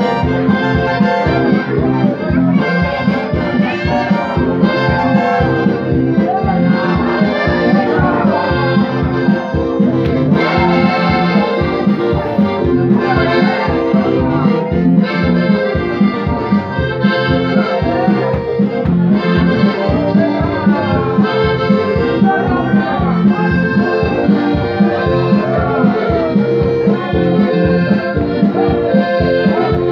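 Accordion-led dance music with a fast, steady beat.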